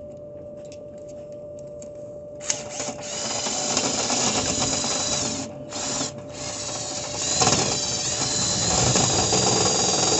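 Power drill spinning a rotary cleaning brush through a dryer vent duct. It starts about two and a half seconds in with a steady motor whine over scraping noise, and cuts out briefly twice around the middle. A faint steady hum sits underneath.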